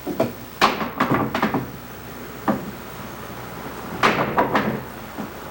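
A series of sharp knocks and thumps: a cluster about a second in, a single knock midway and another cluster about four seconds in.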